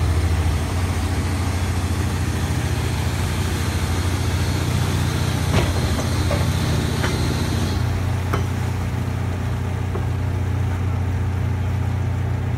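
Steady low boat-engine drone with a rushing, hissing noise over it that thins out about eight seconds in, and a few faint knocks near the middle.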